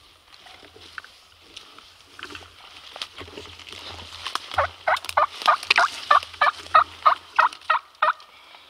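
Turkey yelping: a long, even run of about fourteen loud yelps, roughly four a second, starting about halfway through. Before it come a few soft rustles and clicks.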